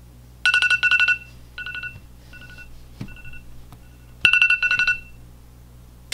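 Smartphone alarm ringing: groups of rapid, high electronic beeps, loud twice, with softer repeats between, stopping about five seconds in. A single click sounds about three seconds in.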